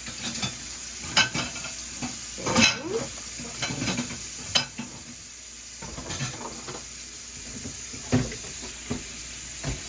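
Kitchen handling sounds: scattered clinks and taps of containers and utensils while dry dumpling ingredients are measured into a bowl, over a steady faint hiss.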